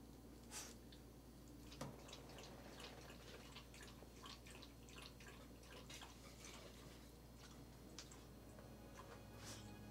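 Near silence with faint, irregular small clicks and taps: a wooden box being handled on a lap.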